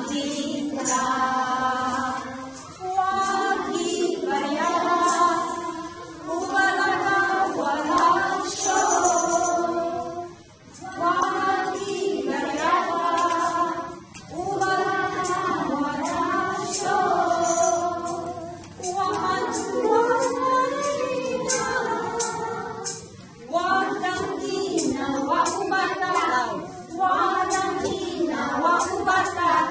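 A class of children and a woman singing together without accompaniment, reading from lyric sheets, in sung phrases of a few seconds with short breaks between them.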